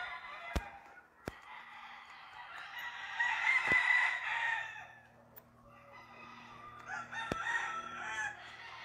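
Roosters crowing, two long crows one after the other, with four sharp clicks of scissors snipping a gamecock's feathers.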